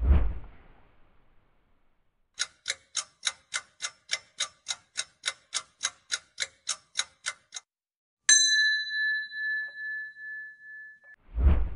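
Quiz-show sound effects. A low thump with a hissing tail comes first. Then a countdown timer ticks about four times a second for about five seconds. A bell-like ding follows and rings for about three seconds, and a second low thump comes near the end.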